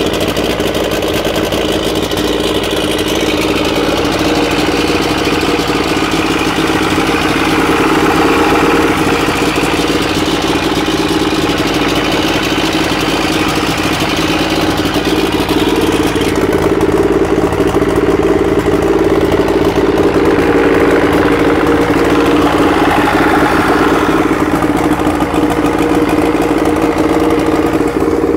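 Force 75 two-stroke outboard running out of the water on a flushing hose, idling steadily during a diagnostic test run.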